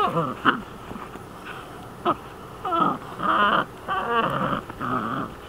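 Dutch Shepherd puppy giving a string of short, high-pitched whines and yelps, some of them wavering, as it tugs with its teeth at a trouser leg in bite-work play.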